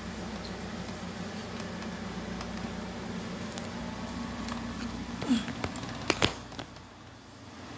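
A steady low hum, with a few sharp metallic clicks of hand tools about five to six seconds in as a spark plug is being fitted. The hum drops away soon after the clicks.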